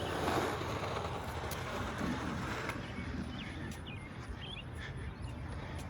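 Steady outdoor background noise, with a few faint short chirps about three and a half seconds in.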